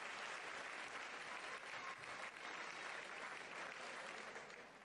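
Hall audience applauding, a steady dense clatter of many hands that dies away near the end.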